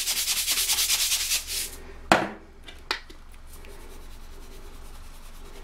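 Salt and pepper grinder rasping in quick, even strokes for under two seconds. Then a sharp knock, a smaller one, and a faint steady sizzle from ground beef browning in the skillet.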